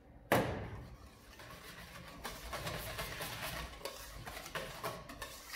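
A sharp knock, then from about two seconds in a wire whisk beating thick aioli in a stainless steel bowl: quick, rhythmic scraping and clinking of metal on metal.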